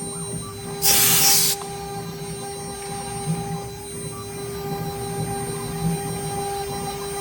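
CNC router spindle running with a steady whine and a rough grinding rumble as it engraves stone. About a second in, a loud hiss lasts for under a second.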